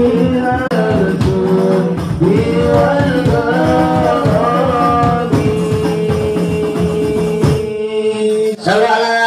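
Islamic devotional song: singing accompanied by hand drums keeping a steady beat, with one long held note about two-thirds of the way through. The drums stop near the end.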